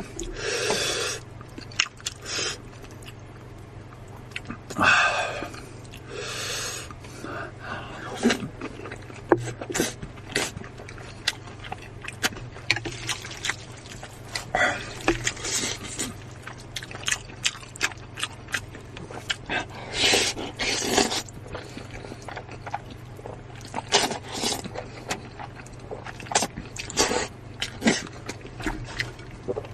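Close-miked eating sounds: chewing with many small wet clicks and smacks, and several longer bursts of a second or so.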